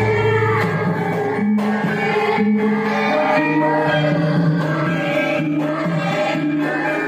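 Javanese gamelan ensemble playing dance accompaniment: sustained metallophone and gong notes changing in step, with a voice singing over it.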